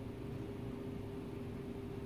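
Steady room hum with a faint constant tone; nothing else happens.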